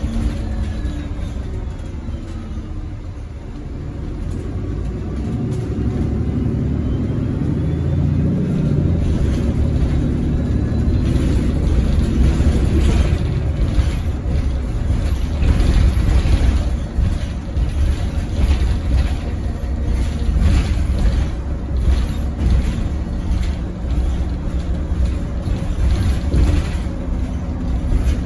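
Cabin sound of a 2018 Nova Bus LFS hybrid-electric city bus underway: a steady low rumble from its hybrid drivetrain and the road, easing a few seconds in and then building again. In the second half, frequent rattles and knocks from the interior fittings join in.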